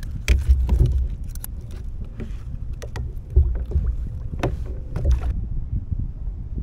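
Wind gusting on the microphone of a kayak on open water, with scattered sharp clicks and taps from hands working a fish hook, rig and fishing line. The clicks stop about five seconds in.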